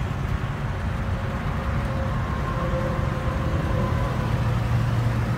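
A vehicle engine idling: a steady low hum that grows a little stronger in the second half.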